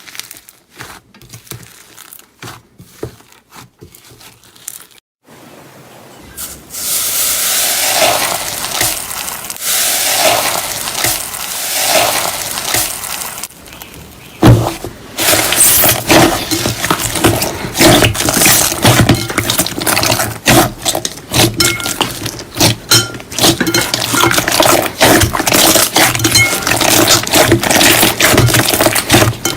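Slime being squished and pressed by hand, with sticky crackling and popping clicks: faint and sparse at first, a wet swelling hiss from about six seconds in, then a sudden loud squish about halfway and dense crackling after it.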